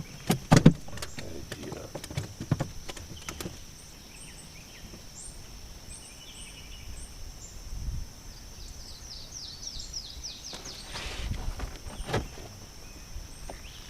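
Outdoor river ambience from a fishing boat: a few sharp knocks in the first few seconds, a steady high-pitched hum, and a bird calling, with a quick run of falling notes about nine seconds in.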